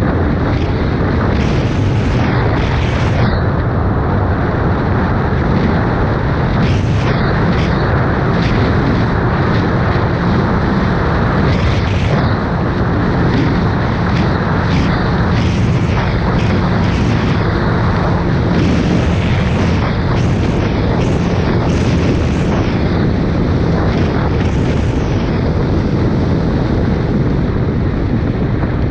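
Wind rushing and buffeting over the microphone of a moving Suzuki Hayabusa, with the steady drone of its inline-four engine underneath.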